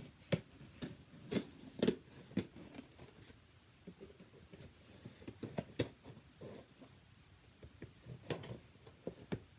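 Package being opened by hand: an irregular run of crackles, scrapes and taps from packaging being cut, pulled and handled.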